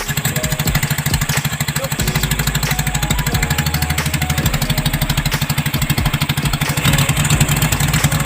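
Small engine running steadily, its rapid, even firing pulses continuous.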